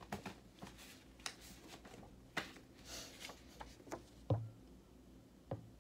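Oracle cards being handled: quick paper rustles and soft flicks as a card is drawn from the deck. Two soft thumps come near the end.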